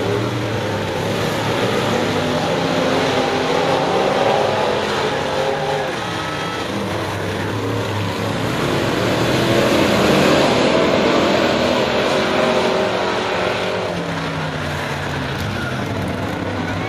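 A pack of crate-engine V8 dirt modified race cars running hard on a dirt oval. Several engines rise and fall in pitch at once, swelling in loudness as the cars come by about four and again about ten seconds in.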